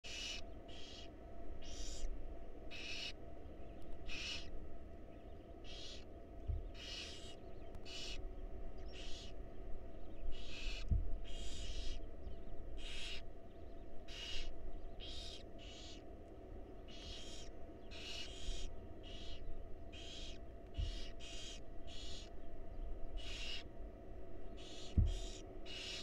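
Barn owl nestlings' hissing begging calls, the food-begging "snore": short rasping hisses repeated about once or twice a second. A few soft low thumps come in between.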